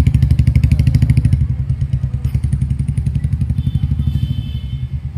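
A nearby engine idling with a steady low pulse of roughly eight beats a second. A fine metallic rattle sits over it for the first second or so.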